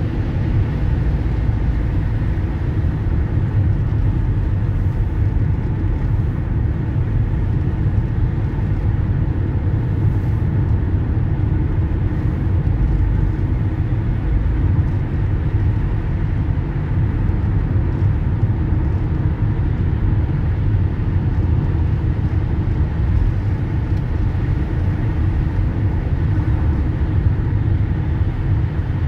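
Steady low rumble of road and engine noise heard from inside a moving vehicle, its tyres running on a wet road.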